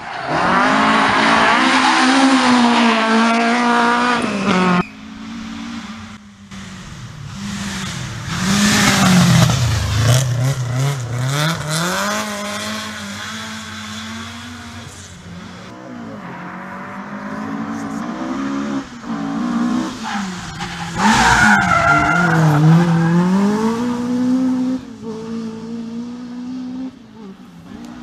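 Ford Escort rally cars driven hard past the spectators in several passes cut together. The engine note climbs at full throttle, drops steeply as the driver lifts off for a corner, then rises again on the power. The first pass stops abruptly about five seconds in.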